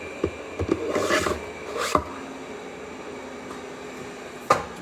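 3D-printed plastic whetstone storage cases being handled: a few light clicks, a short scraping slide about a second in, and a sharper click near the end.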